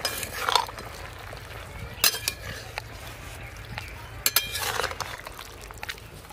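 Metal spatula scraping and clinking against a metal wok while vegetables in a thin milky broth are stirred, in a few short rounds: at the start, about two seconds in, and again around four and a half seconds in.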